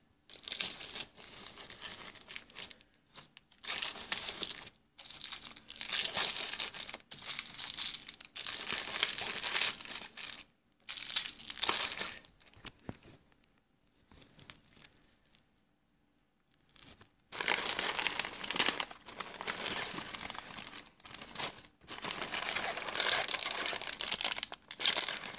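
Plastic snack wrappers and bags crinkling and rustling in repeated bursts as packaged snacks are handled and packed into an insulated lunchbox. The rustling stops for a few seconds about halfway through, then starts again.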